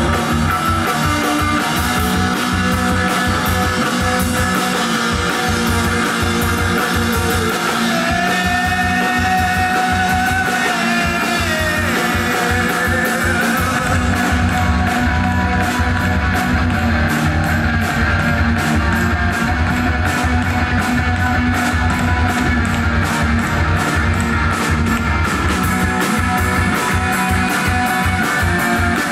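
Rock band playing live: distorted electric guitar over a steady drum-kit beat, with held guitar notes bending in pitch about a third of the way in.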